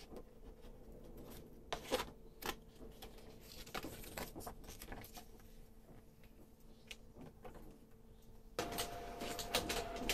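A few clicks and rustles as a sheet of paper is handled at a printer's manual feed tray. Then, about eight and a half seconds in, the Fuji Xerox DocuPrint CP115 w printer starts up suddenly with a steady motor whine as it draws the sheet in.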